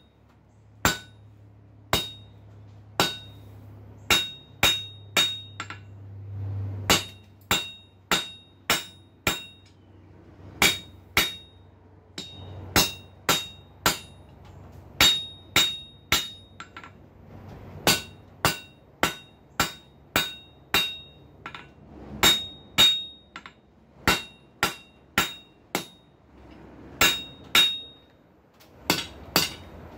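Hand hammer striking hot steel flat stock on the edge of an anvil, about one to two blows a second with a short pause near the end, each blow ringing bright and metallic. These are half-face blows offsetting a square on the end of the bar.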